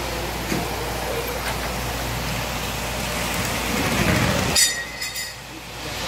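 Steady background noise of a busy hall, with a low rumble swelling about four seconds in that cuts off abruptly; the steady noise returns near the end.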